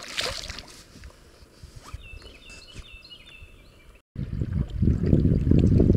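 A white bass splashes back into the water beside the kayak right at the start, the splash dying away within half a second, followed by a few short high chirps about two seconds in. After a sudden cut, a loud low rumble of wind on the microphone takes over for the last two seconds.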